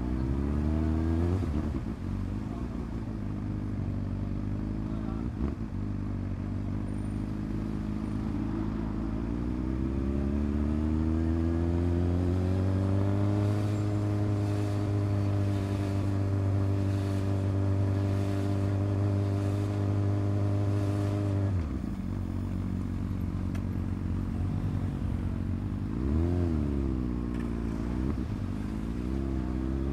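Honda CB600F Hornet's inline-four engine through an SC-Project exhaust, ridden: the engine note rises under acceleration about a third of the way in and holds steady for several seconds. It drops off suddenly as the throttle closes, then rises and falls twice briefly near the end.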